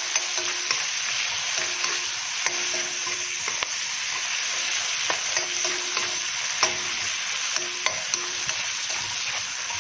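Sliced onions and tomatoes sautéing in hot oil in a wok, with a steady sizzle while a spatula stirs them, scraping and clicking against the pan every second or so.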